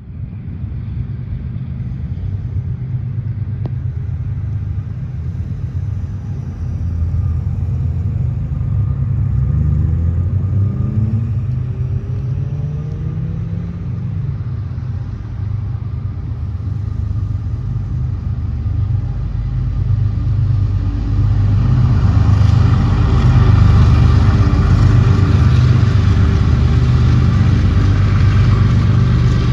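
Deep, steady heavy diesel engine rumble, with an engine's pitch rising between about ten and fourteen seconds in; the sound gets louder and fuller about two-thirds of the way through and stays there.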